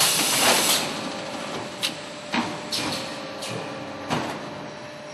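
Polystyrene foam food-container forming and trimming machine at work: a burst of hiss at the start, then five sharp clicks and knocks spaced irregularly over the next few seconds, over a steady hum.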